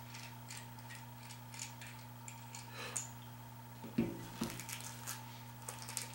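Light clicks and taps of small parts and tools being handled, with two duller knocks about four seconds in, over a steady electrical hum.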